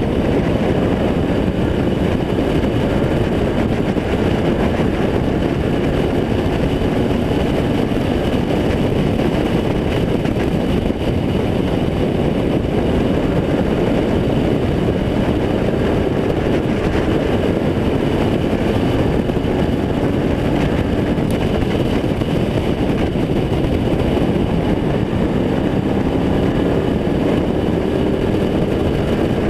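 Renegade-class stock car's engine running hard at racing speed, heard from on board, its pitch rising and falling a little as the car goes round the track.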